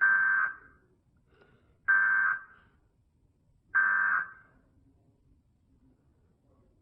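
Emergency Alert System end-of-message code: three short bursts of buzzing digital data tones, about two seconds apart, signalling the close of the tornado warning broadcast.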